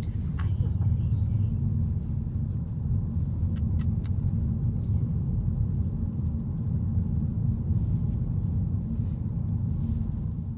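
Steady low rumble of car road noise, as heard inside a moving car, with a few faint clicks about three and a half seconds in.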